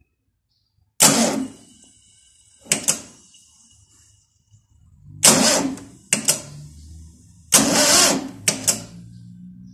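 Starter of a VW Type 4 air-cooled engine jolting in short tries as a jumper wire is touched to the solenoid terminal. There are about seven sharp bursts, the later ones longer, with a low hum between them from about halfway. The engine never turns over or catches, because the battery is too weak to crank it: the owner takes the battery to be gone.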